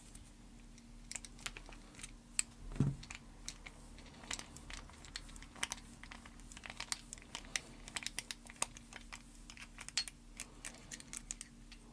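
Irregular small clicks and taps of metal hand tools working at an Allen set screw inside a padlock body, with one duller knock about three seconds in.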